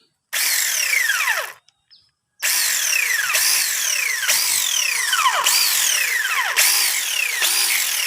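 Cordless battery mini chainsaw run with no load: a short burst of about a second, then after a brief pause a longer run of about six seconds. Its whine slides down in pitch over and over.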